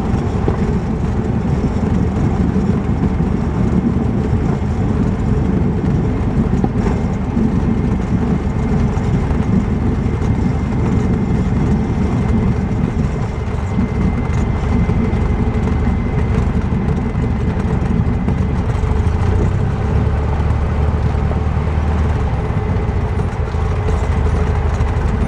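Cessna 150's four-cylinder Continental O-200 engine and propeller running at low power, a steady drone heard from inside the cockpit as the plane rolls out after landing and taxis.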